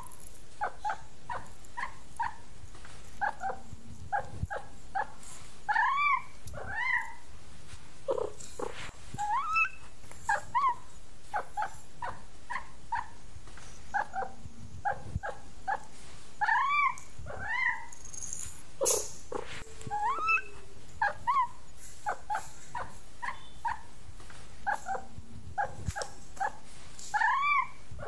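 Cats eating dry kibble and giving a steady run of short, rising-and-falling mews, often two or three a second, while they chew.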